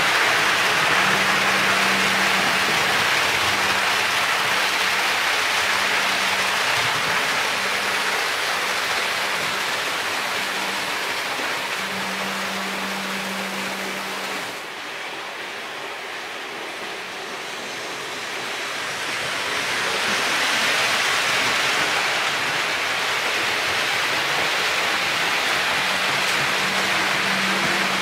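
Märklin HO model trains rolling on metal track: a steady rushing rumble of wheels on rails with an on-and-off low motor hum. It fades about halfway through and builds up again.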